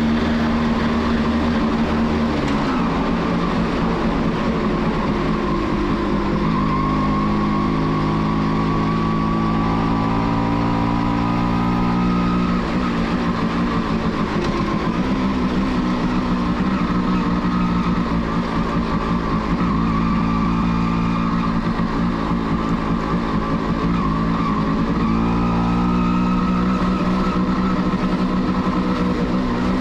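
Kawasaki B1's two-stroke single-cylinder engine heard from the rider's seat, rising in pitch as it pulls through the gears and dropping back with each shift or roll-off, several times over, with steady road and wind noise beneath.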